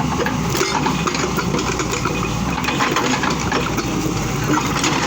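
Diesel engine of a working excavator running steadily, with scattered clanks and rattles over the hum.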